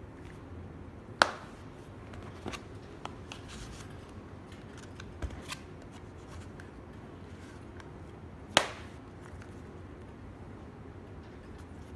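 Handling of a fabric flip wallet phone case: two sharp snaps, about a second in and again near the end, with lighter clicks and card-handling rustles between.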